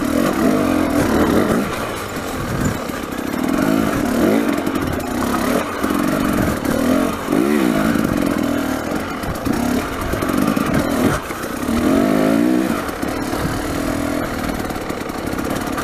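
Dirt bike engine revving up and down with the throttle as the bike climbs loose, rocky ground, with stones clattering under the tyres now and then.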